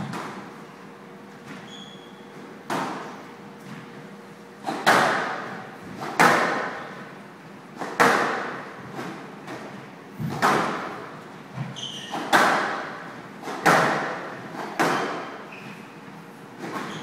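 Squash rally on a glass show court: the ball is struck by the rackets and smacks off the walls in sharp echoing hits, about one every second or so, about a dozen in all. A few short squeaks of shoes on the court floor come between the hits.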